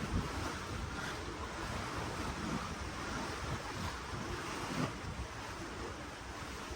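Ocean waves washing and churning in a steady rush of water seen from a cruise ship, with gusts of wind buffeting the microphone in uneven low rumbles.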